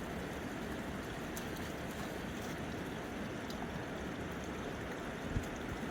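A fast-flowing river rushing steadily. A single short, dull thump sounds near the end.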